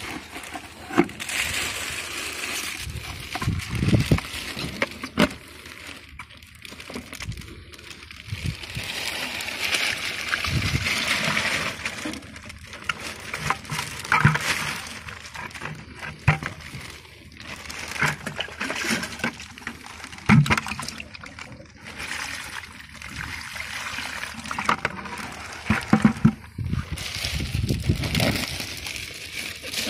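Water sloshing, splashing and being poured off as squid are handled in a plastic bag over a plastic bucket, with the bag crinkling and rustling and small irregular clicks throughout.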